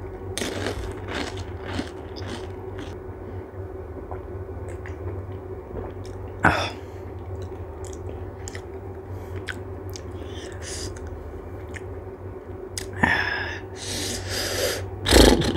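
Pani puri being eaten close to the microphone: crunching and chewing, with a few louder mouth noises about six seconds in and again near the end, over a steady low hum.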